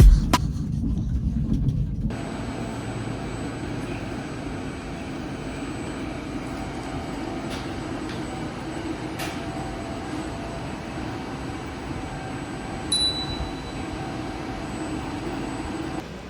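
Train running, a steady rumble with faint steady hum tones, after a louder low-pitched sound that cuts off about two seconds in. A short high beep sounds once late on.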